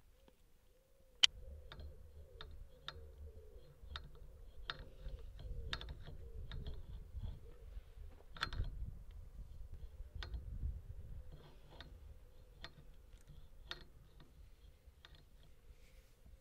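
A string of sharp clicks, roughly one a second with uneven spacing, the loudest about a second in, over a low rumble that swells midway and fades near the end.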